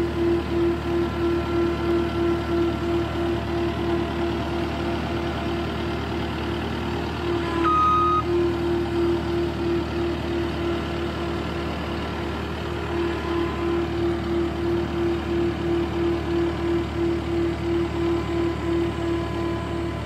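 CAT 259D compact track loader's diesel engine running with its backup alarm beeping in an even rhythm, about two to three beeps a second. A brief higher tone sounds about eight seconds in.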